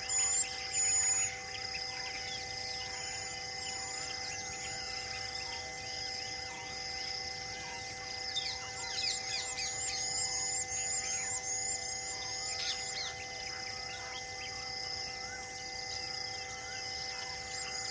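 Birds chirping and calling over a steady, pulsing insect drone. There is a loud burst of calls about a second in, and a run of rapid high chirps and falling whistles in the middle.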